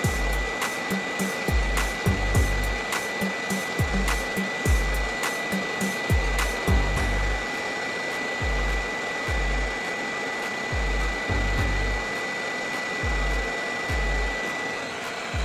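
Hot air rework station blowing a steady hiss of air through its nozzle, reflowing solder paste into solder balls on a BGA reball stencil at 320 °C. A thin steady high tone runs through it, and a steady low beat of background music plays underneath.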